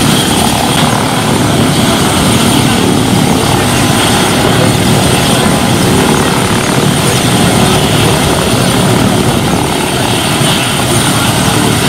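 Indian Air Force Mi-17 helicopter running on the ground, its twin turboshaft engines and rotor making a loud, steady noise.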